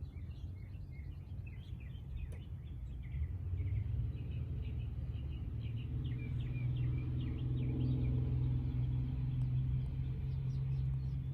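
Small birds chirping, over a low steady hum that grows louder about three seconds in.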